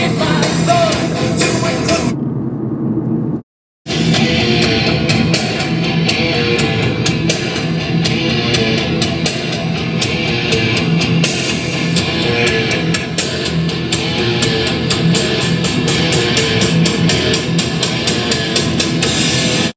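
Rock music with guitar and drums. It drops out for a moment about three and a half seconds in, resumes, and cuts off abruptly at the end.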